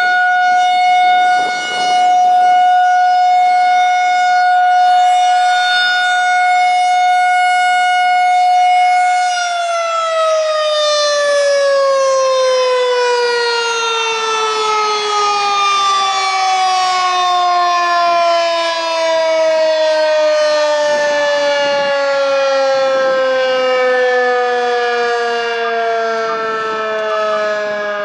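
Federal Signal 2001-130 outdoor warning siren sounding a steady tone, the Alert signal. About nine seconds in, it begins winding down, its pitch falling slowly and evenly as the rotor coasts.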